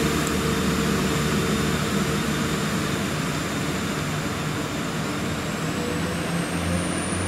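Class 175 diesel multiple unit pulling away from the platform, its diesel engines running under power as it accelerates off, with a thin high whine rising in pitch past the middle.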